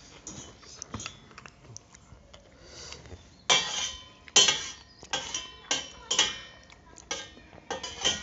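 Spoons and forks clinking and scraping on ceramic and metal plates while eating. The first half is faint, then a quick run of sharp scrapes and clinks starts about halfway in.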